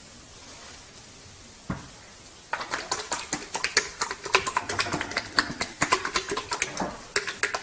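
Rapid, irregular clicking and tapping, several sharp clicks a second, starting suddenly about two and a half seconds in after a quiet stretch with a single thump.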